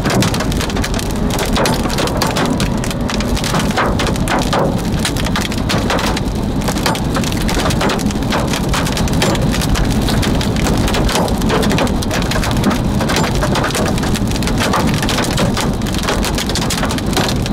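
Heavy rain pelting a car's roof and windshield, heard from inside the car as a dense, steady patter of countless small hits.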